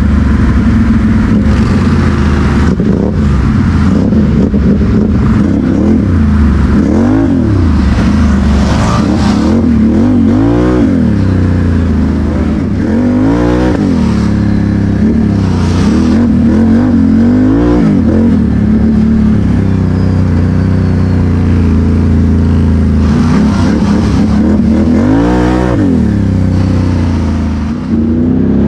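ATV engine running under way, its pitch rising and falling several times as the throttle is opened and eased off.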